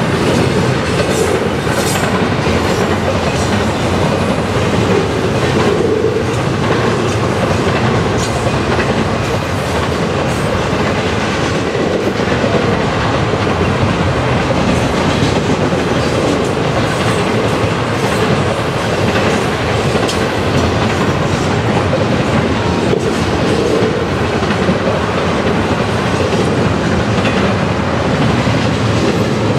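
Double-stack intermodal container train's well cars rolling past at speed: a steady, loud rumble and clatter of steel wheels on the rails.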